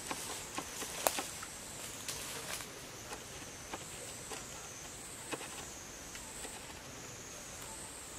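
A high, thin insect drone that wavers slowly up and down in pitch, with scattered sharp clicks and rustles, the loudest about a second in.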